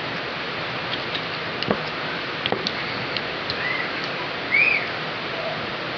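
Heavy rain hissing steadily, with scattered light clicks and two short squeaky chirps about four seconds in, the second louder.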